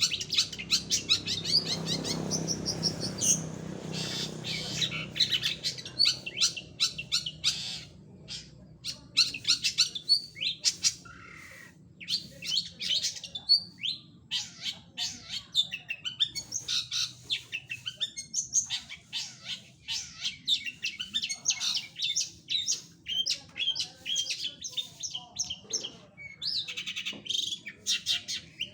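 Long-tailed shrike (cendet) in full song: a fast, continuous run of varied high chirps and trills. The song thins out for a few seconds around the middle, and a low rumble sits under it in the first few seconds.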